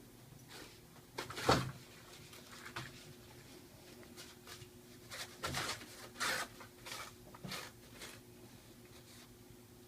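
Toilet paper rustling and crinkling in short irregular bursts as kittens paw and pull at it, loudest about one and a half seconds in and busiest in the second half.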